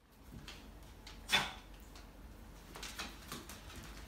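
Dogs' claws clicking and tapping on a hardwood floor as they walk about, with one sharper knock about a second in.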